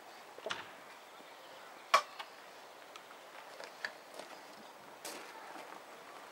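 Hand tools knocking and clinking on a part being fitted: a few sharp, separate knocks, the loudest about two seconds in.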